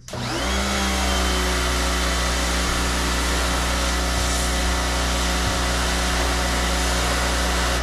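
Electric pressure washer's motor and pump spinning up with a short rising whine as the trigger is squeezed, running steadily, then stopping right at the end.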